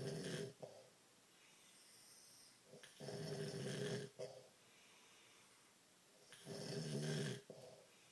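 Snoring from a sleeping man and dog: three loud snores, each a little over a second long, coming about every three and a half seconds, with soft breathing between them.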